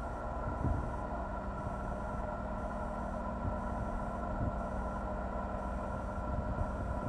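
Stationary Nagoya Municipal Subway 2000 series train, powered up at the platform: a steady hum with several held whining tones from its onboard equipment over a low rumble. There is a soft low thump under a second in.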